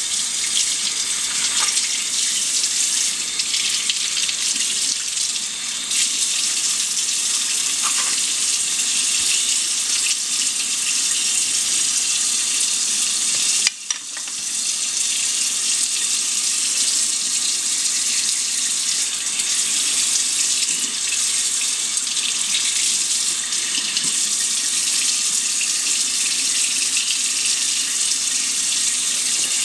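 Kitchen faucet running steadily into a sink, the stream splashing over a crab being rinsed clean in gloved hands. About halfway through there is a short click and a brief dip before the flow sound resumes.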